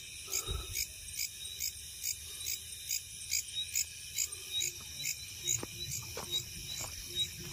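Night insects chirping in a steady, even rhythm, a little over two chirps a second, over a thin continuous high trill.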